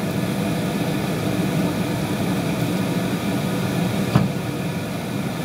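Steady low drone of a kitchen range hood extractor fan running, with one short knock about four seconds in.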